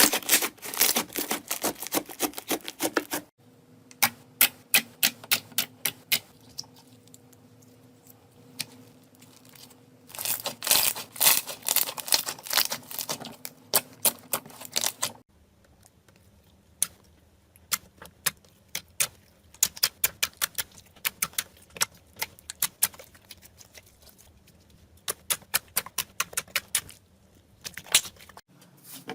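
Slime being squeezed and pressed by hand, giving runs of rapid, crisp clicks and crackles of a few seconds each, with short quieter gaps between them.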